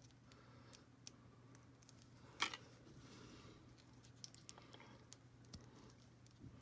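Near silence with faint scattered clicks from a small plastic doll and its clothing pieces being handled, and one louder click about two and a half seconds in.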